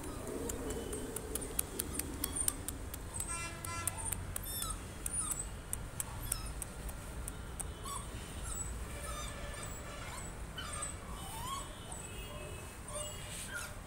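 Small birds chirping in short, repeated high calls, over a rapid run of sharp clicks, about four a second, in the first three seconds or so.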